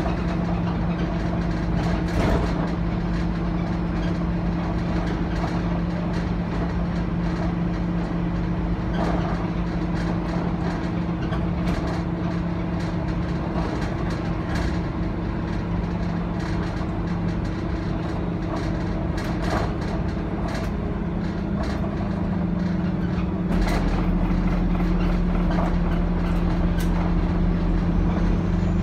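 Scania OmniCity N230UD double-decker bus heard from the upper deck on the move: a steady five-cylinder diesel drone with frequent rattles and knocks from the bodywork and fittings. Near the end the engine grows louder with a deeper rumble as it pulls harder.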